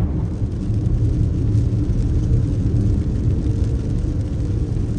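Steady low rumble of a car driving, heard from inside the cabin: road and engine noise at cruising speed.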